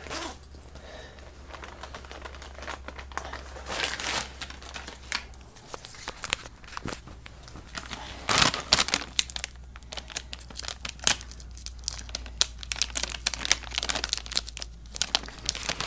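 A bag of dry cat food being crinkled and worked at as it is opened: irregular crackling and rustling of the packaging, hard to open, with louder bursts through the middle.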